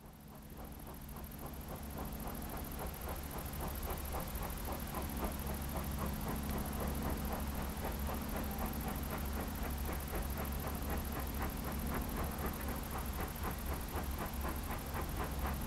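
Steam locomotive working hard, its exhaust beating rhythmically several times a second over a steady low rumble, growing louder over the first few seconds as it approaches.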